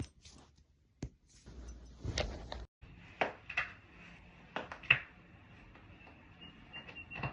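Joints cracking during chiropractic adjustments: a series of sharp pops and clicks, the loudest about five seconds in.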